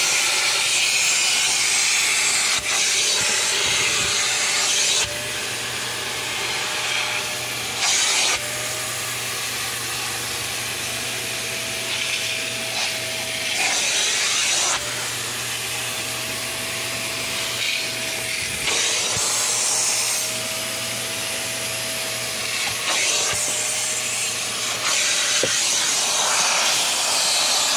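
Hart 6-gallon, 5.5 peak horsepower wet/dry shop vac running with its water-extractor nozzle, sucking shampoo water out of soaked carpet. It is a steady motor hum and whine under a rush of air. The rush swells louder and drops back every few seconds as the nozzle works the carpet.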